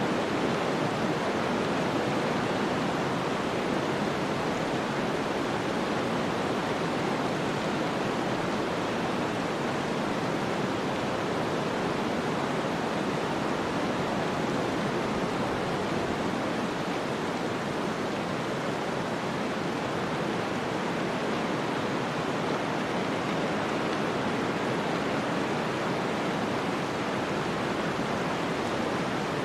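Snowstorm ambience: a steady, even hiss of wind-driven snow with no distinct events.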